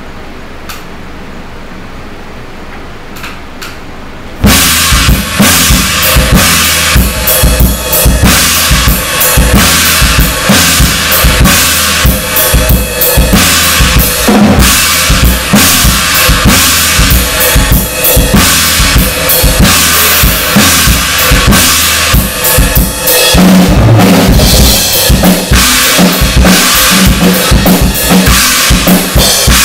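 Acoustic drum kit played in a heavy metal style: kick drum, snare and cymbals in a dense, fast, driving pattern that starts about four seconds in and changes its groove roughly two thirds of the way through.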